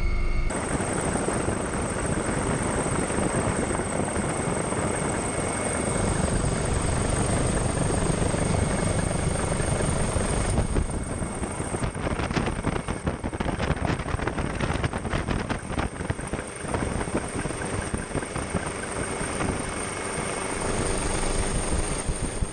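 Helicopter rotor and engine noise heard from aboard the helicopter: a steady, dense rumble that turns choppier about halfway through.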